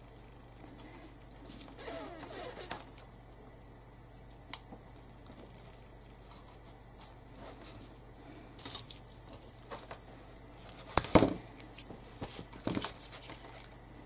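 Crafting handling noises: cut-out flowers and leaves rustling and crinkling as they are picked up and pressed onto the cage, with scattered small clicks and a brief, louder clatter about eleven seconds in.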